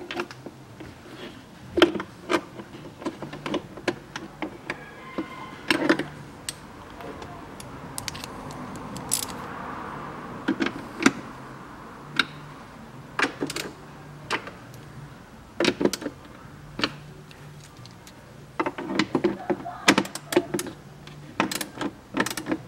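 Irregular clicks and knocks of plastic dashboard trim and a screwdriver as a car's glovebox is fitted and screwed into place, with a longer soft rustle near the middle.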